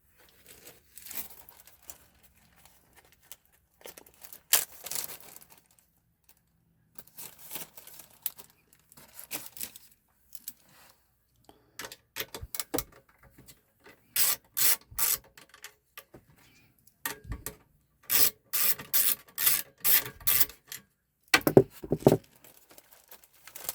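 Parts of a Tandy 2000 computer being worked loose by hand during disassembly: irregular scraping and rubbing, with a quick run of four rasping strokes about two-thirds through and a longer run of about six soon after.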